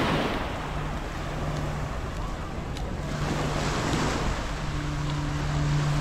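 Small waves washing onto a sandy beach, the wash swelling at the start and again about three seconds in, with wind on the microphone. A low steady hum comes in about a second in.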